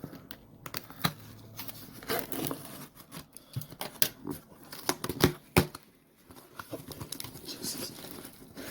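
A shipping package being opened by hand: irregular sharp clicks and knocks, with packaging crinkling and tearing in between.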